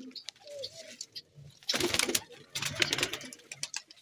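Domestic fighter pigeons, one cooing briefly near the start, followed by two louder bursts of rustling and scuffing about two and three seconds in.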